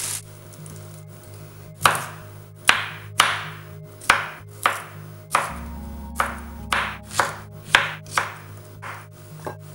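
A small cleaver chopping broccoli and zucchini on a plastic cutting board: about fourteen sharp chops, roughly two a second and unevenly spaced, starting about two seconds in. Soft background music runs underneath.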